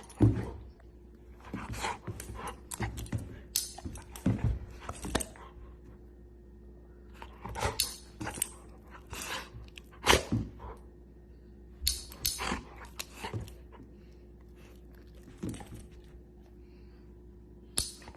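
A dog making short, irregular sounds in scattered clusters with pauses between, over a steady low hum.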